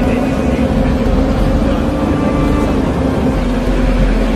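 Heavy-load transporter running steadily with a low, even engine hum as it carries its load slowly along the road.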